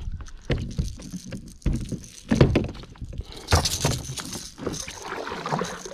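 Clatter and knocks on a plastic fishing kayak as a small snapper hooked on a rattling lipless lure is handled, with the lure's rattle jangling. There are several sharp knocks, the loudest about two and a half and three and a half seconds in.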